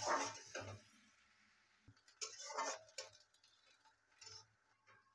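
A spatula scraping and clattering against a metal kadai while chopped onions are stirred and fried in butter. It comes in a few separate strokes about a second apart, with quiet gaps between them.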